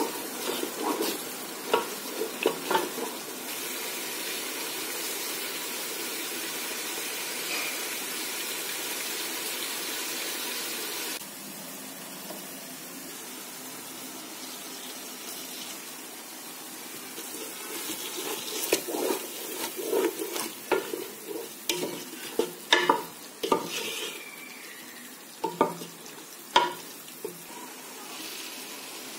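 Thick masala gravy sizzling in a metal pot while a spoon stirs and scrapes through it. The steady sizzle drops suddenly about eleven seconds in, and later a run of spoon knocks and scrapes against the pot follows.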